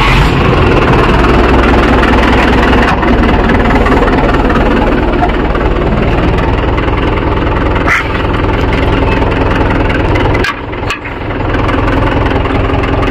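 Mahindra 415 DI tractor's diesel engine running steadily close by, with a brief dip in level about ten and a half seconds in.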